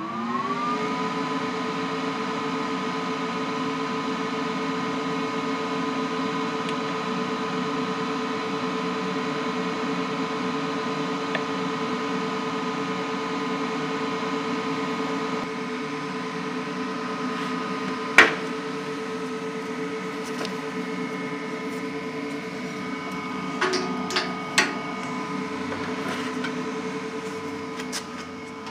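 An electric motor, like a fan, spinning up at the start and then running with a steady, even hum. A single sharp knock comes about two-thirds of the way through, and a few lighter clicks near the end.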